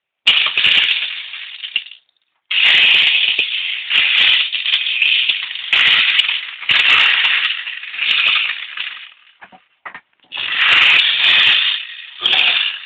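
6 mm plastic beads rattling inside the plastic drum of a toy cement mixer lorry. The rattling comes in several bursts a few seconds long, broken by short pauses.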